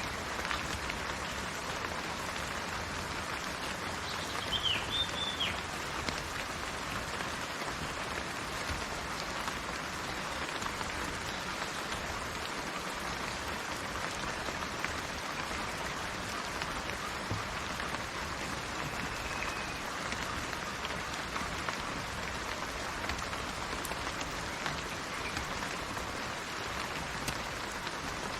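Steady rain falling on leaves. A bird gives a brief call about five seconds in, with a fainter call later on.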